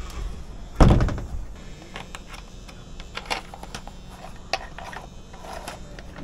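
A single heavy thump about a second in, then scattered light clicks and knocks from the fittings of a truck trailer as the tie rope is worked through them.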